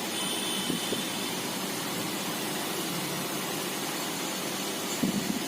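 Steady background hiss of room noise, with a faint high whine near the start and a couple of soft brief sounds.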